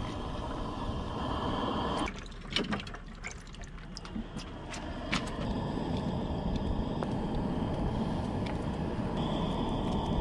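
Crawfish boiling in a pot of seasoned water on a portable gas grill: steady bubbling, with a run of sharp clicks from metal tongs between about two and five seconds in.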